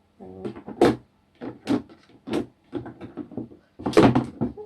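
Hard plastic clicks and knocks as a plastic tap and its washers are handled and fitted to a plastic Bokashi bin, with a quicker, louder cluster of knocks near the end.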